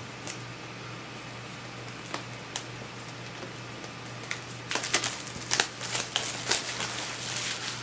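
Tear-tab wrapping being pulled off an iPad mini box and the box handled: a few scattered rustles and clicks at first, then a dense run of crinkling and crackling from about five seconds in, over a steady low hum.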